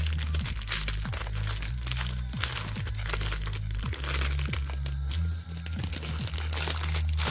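Packaging crinkling and rustling in the hands as a pack of crystals is opened, over background music with a steady low bass.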